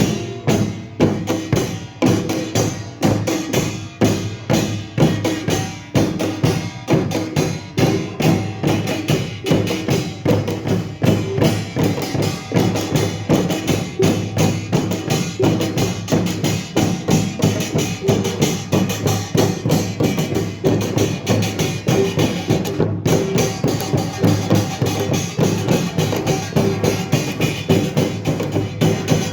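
Korean pungmul percussion ensemble playing: drums and small gongs struck in a dense, steady, driving rhythm.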